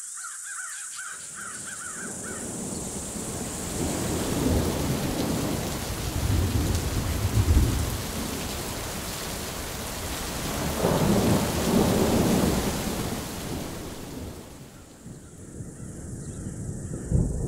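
Thunder rumbling in two long rolls, one in the first half and a second just past the middle, over a steady hiss of rain.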